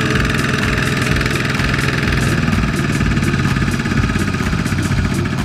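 Single-cylinder diesel engine of a two-wheel walking tractor running steadily with a fast, even chugging beat.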